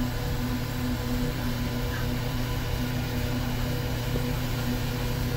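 Sawmill machinery running with a steady low hum. A higher tone drops out briefly a couple of times.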